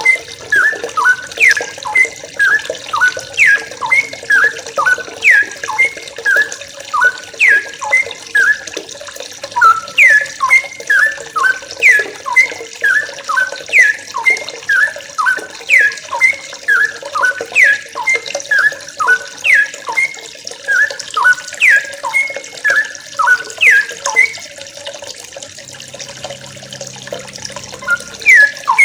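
Yellow-vented bulbuls (trucukan), a group of young wild birds, calling in quick, repeated short downward-sliding notes, about two a second. The calling breaks off briefly near the end, then resumes.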